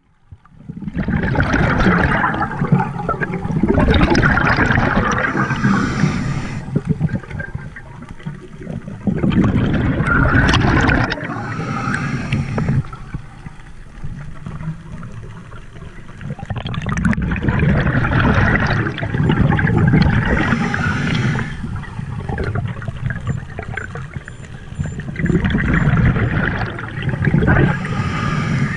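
Underwater scuba breathing through a regulator: long bubbling exhalations a few seconds each, about four of them roughly eight seconds apart, with quieter gaps between for the inhales.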